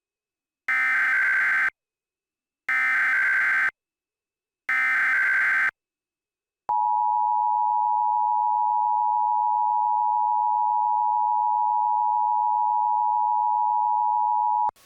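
Emergency Alert System alert opening: three one-second bursts of SAME digital header data, which encode the alert, then the EAS two-tone attention signal, a steady dual tone held for about eight seconds and cut off sharply. Together they mark the start of an emergency alert broadcast, here a nuclear power plant warning.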